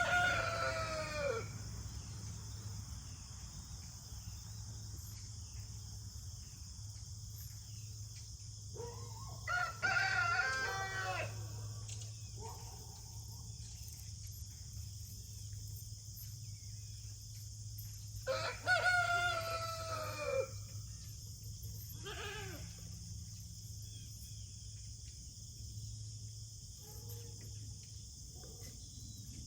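Rooster crowing three times, about nine seconds apart, each crow around two seconds long and dropping in pitch at the end, with a shorter call after the last one. A steady low hum runs underneath.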